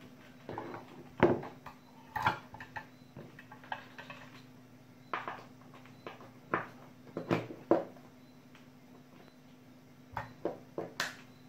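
Handling noise at a work mat: irregular knocks and light metallic clicks as a soldering iron, its cord and a metal-cased battery are moved and set down on a rubber repair mat, a few sharper knocks standing out. A steady faint hum runs underneath.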